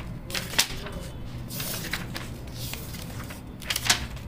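Paper rustling as the pages of a thick textbook are turned, in several short swishes and flaps.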